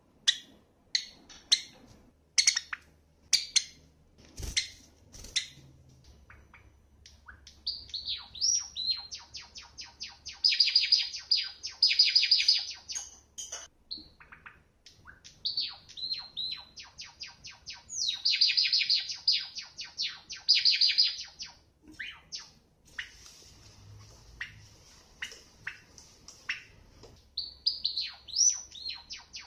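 Java sparrow calling with a few sharp, separate chirps, then singing: strings of quick clicking notes that build into dense, high trilled phrases, three times over.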